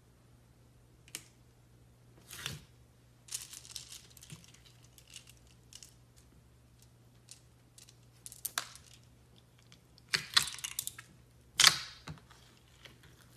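Clear slime with bear-shaped beads being pressed, lifted and stretched by hand in a plastic tub, giving irregular sticky crackles and pops. The loudest bursts come about ten to twelve seconds in.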